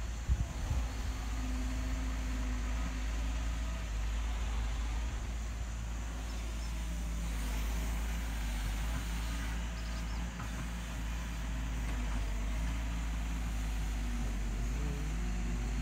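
Wheeled hydraulic excavator's diesel engine running steadily under load as it digs and swings its bucket, with a low rumble and the engine note rising briefly near the end.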